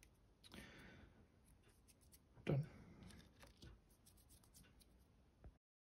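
Faint handling of small plastic parts on a rubber work mat: a light rubbing, one soft knock about two and a half seconds in as a piece is set down, and a few small clicks.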